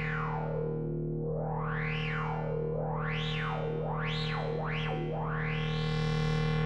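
Moog Grandmother synthesizer holding one low drone note through an Earthquaker Devices Pyramids flanger pedal, giving a jet-like whoosh that sweeps up and down. The sweeps quicken to about two a second in the middle, then slow into one long rise near the end.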